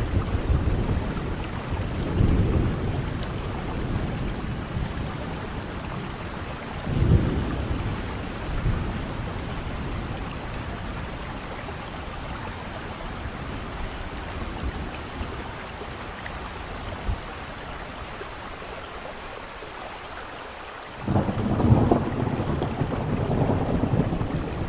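Steady rain with rolling thunder: low rumbles swell a couple of times early on, then a louder rumble of thunder starts abruptly near the end and keeps going.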